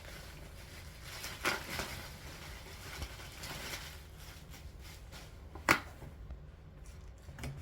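Bubble wrap and packaging being handled while a parcel is unwrapped: a few short rustles and knocks, and one sharp snap about two-thirds of the way through that is the loudest sound.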